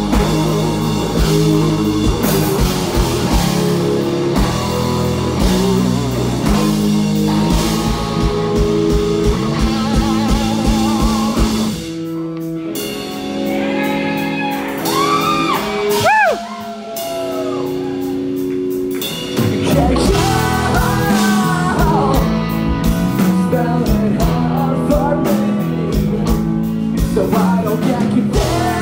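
Live rock band playing with a singer: electric guitars, bass and drums. About twelve seconds in the drums drop out for a sparer, quieter stretch with sliding high notes, and the full band comes back in about seven seconds later.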